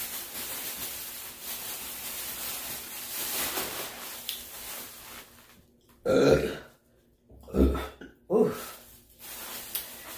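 A plastic takeout bag rustling and crinkling as it is handled. About six seconds in come three loud burps in quick succession.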